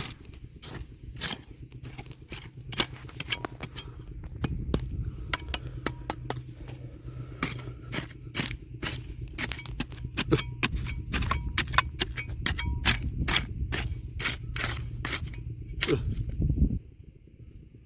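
Digging in stony river gravel: a rapid, irregular run of sharp clicks and scrapes of a tool against rocks, several a second. Under it is a steady low rumble that stops abruptly near the end.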